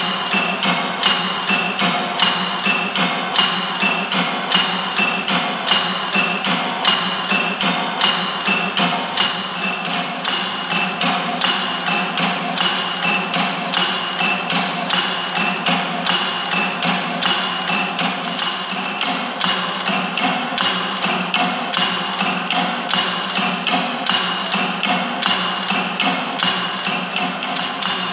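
Kinetic sound sculpture's three carved wooden woodpecker-like birds, worked by lifting relays on an interval timer, pecking their beaks against a carved yew-wood trunk. The result is a steady rhythmic pattern of wooden knocks, about three a second.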